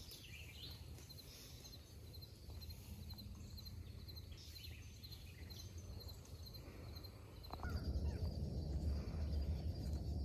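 Outdoor brushland ambience: birds calling, including a few short descending calls, over a steady, evenly repeated high chirping. A low rumble underneath grows louder about seven and a half seconds in.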